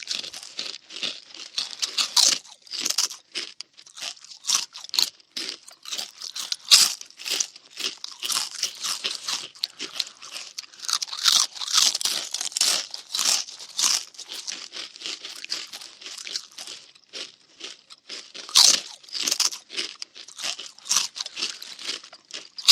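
Cartoon munching sound effect: a long run of quick, irregular crunchy chewing bites, stopping abruptly at the end.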